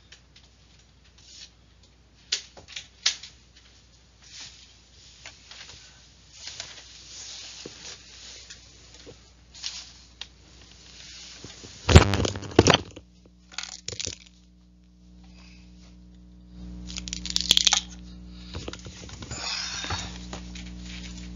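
Irregular clicks and rustling, with a loud crackling burst about twelve seconds in. A steady low hum comes in during the second half.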